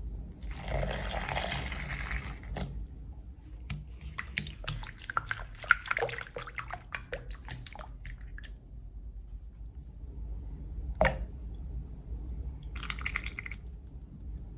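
Lukewarm water poured from a plastic measuring cup into a glass bowl for about two and a half seconds. Then a silicone spatula stirs the mixture, with quick clicks and scrapes against the glass for several seconds, and a single knock later on. A low steady hum runs underneath.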